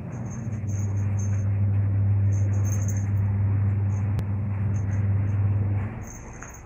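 A steady low hum that drops away about six seconds in.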